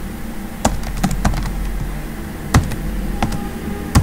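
Computer keyboard typing: a handful of separate keystrokes at an uneven pace.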